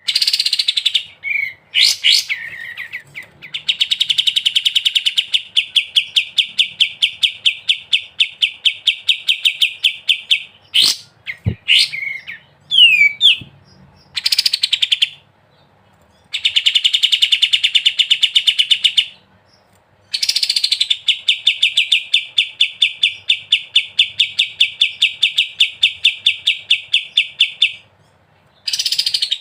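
Kapas tembak singing its 'ngebren' song: long runs of rapid, evenly repeated rattling notes lasting several seconds each, broken by short pauses and a few brief whistled notes.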